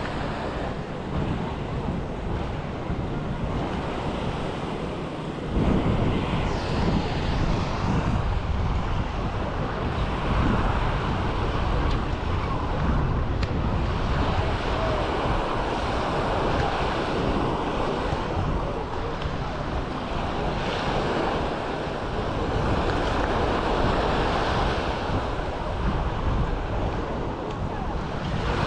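Surf washing on the shore, with wind buffeting the microphone. The wind rumble grows heavier about five seconds in.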